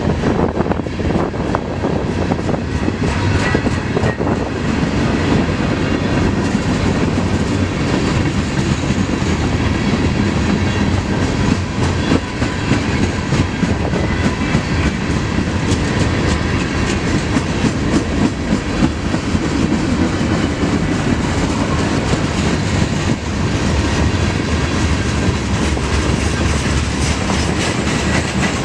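Freight cars of a CSX manifest train rolling past steadily, with a continuous rumble of wheels on rail and the clickety-clack of wheels over rail joints.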